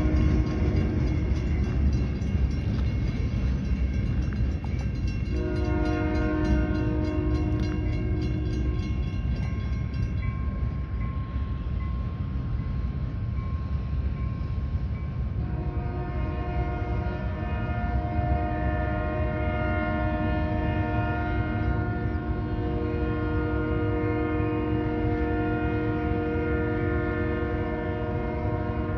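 Union Pacific locomotive's multi-chime air horn sounding as a warning for the grade crossings, over a steady low rumble. One blast ends about four seconds in, another runs from about five to nine seconds, and a long held blast begins about halfway through.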